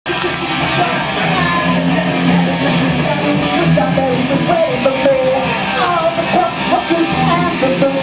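Punk rock band playing live and loud: distorted electric guitars, bass guitar and a drum kit keeping a steady fast beat.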